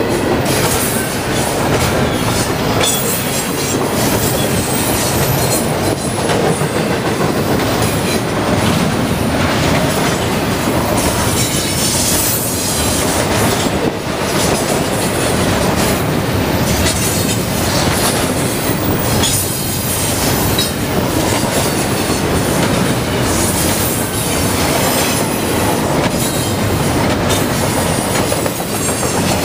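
Double-stack intermodal freight train rolling past close by: loud steady rumble of the well cars' wheels on the rails, with repeated clacks as the wheels cross rail joints.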